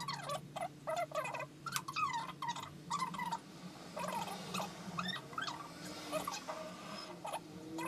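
Rapid run of short animal calls that bend up and down in pitch, one after another, over a steady low hum.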